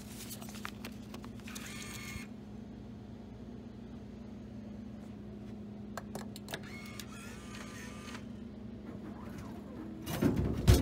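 Soda bottle vending machine's delivery mechanism whirring in two short spells after the Cherry Coke selection is pressed. Loud clunks follow near the end as the bottle is delivered to the bin. A steady low hum runs underneath.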